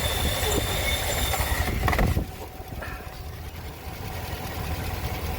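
Ford 6.2-litre V8 idling with a steady high-pitched whistle that stops about two seconds in, after which the engine runs on more quietly. The whistle sounds like something leaking and is traced to a styrofoam coffee cup.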